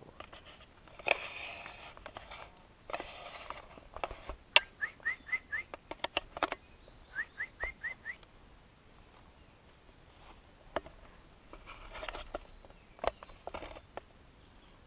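Birds calling in woodland: two runs of about five quick rising chirps, with higher twittering between them. A few short bursts of rustling and some sharp clicks come and go.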